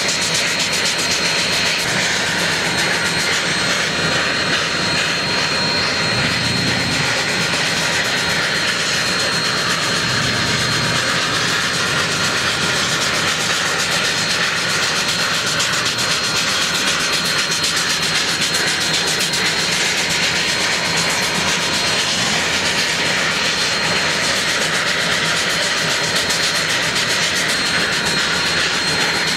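Union Pacific 844, a 4-8-4 steam locomotive, standing and venting steam with a steady hiss that does not let up.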